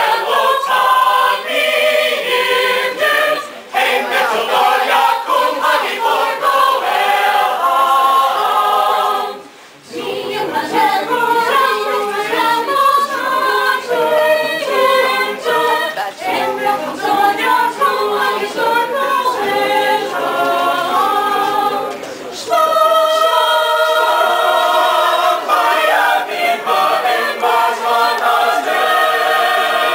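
Mixed-voice a cappella choir singing a Hanukkah song, with short pauses between phrases, the longest about ten seconds in.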